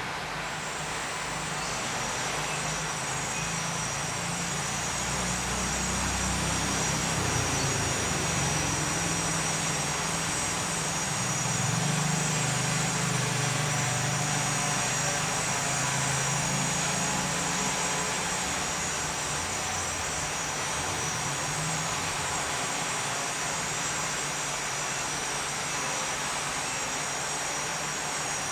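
Aircraft motor and propeller running steadily, with a steady high whine that sets in about half a second in over a rushing hiss, and a low hum that swells in the middle and then eases.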